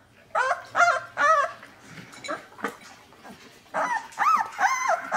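Two-week-old Chinook puppies whining: short, high, pitched cries that rise and fall, three in quick succession about half a second in and three more near the end.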